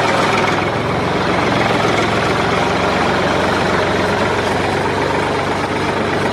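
Engine of a homemade mini tractor running steadily.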